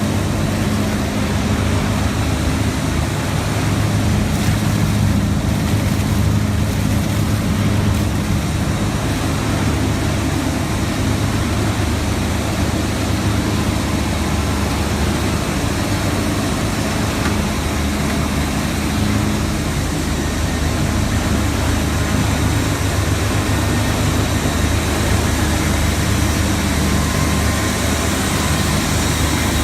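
Waste plastic film washing line running: a loud, steady industrial machine hum with a constant low drone and an even noisy wash over it.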